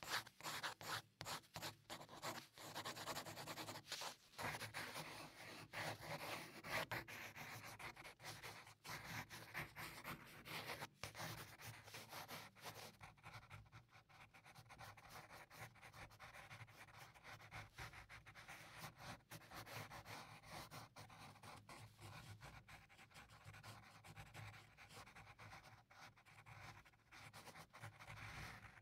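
Graphite pencil scratching and rubbing on paper in quick shading strokes. The strokes are denser and louder for the first dozen seconds or so, then softer and steadier.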